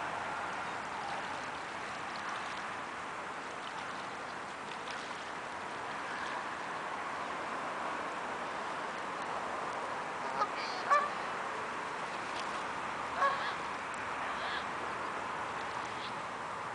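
Canada geese honking: a few short honks in the second half, the loudest about eleven seconds in, over a steady background noise.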